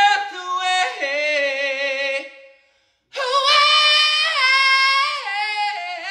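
A man singing unaccompanied in a high voice, long held notes with vibrato, breaking off briefly about two and a half seconds in before carrying on.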